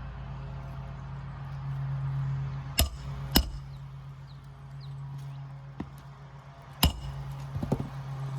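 Hammer striking a roof snake to drive roofing nails back in under lifted asphalt shingles: three sharp metallic strikes, two close together just under 3 seconds in and one near 7 seconds, with a lighter tap between and a few small knocks near the end, over a steady low hum.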